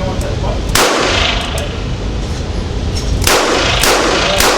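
Ruger revolver shots in an indoor range, each sharp crack followed by a long echoing tail: one about a second in, then three more close together near the end.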